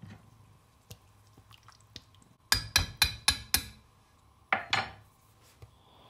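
A spoon knocked sharply against the rim of a frying pan full of curry: five quick taps about two and a half seconds in, then two more a second later.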